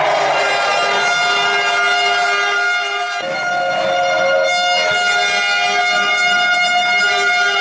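Spectators' horns blowing long, loud, steady notes, several at once. About three seconds in the notes change, and one slides down in pitch a little later.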